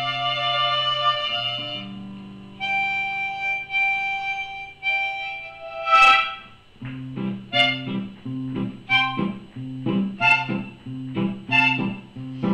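Background instrumental music: long held reedy notes, then from about halfway a steady run of plucked notes.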